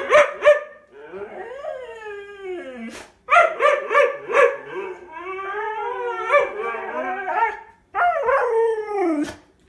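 A husky howling in a string of long, wavering calls that slide up and down in pitch, broken by short yips and barks: an impatient, protesting tantrum to be given its treats. The calls stop shortly before the end.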